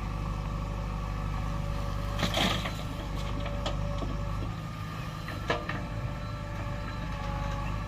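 A JCB 3DX backhoe loader's diesel engine runs steadily at work. A short scraping burst comes about two and a half seconds in, and a sharp knock about five and a half seconds in.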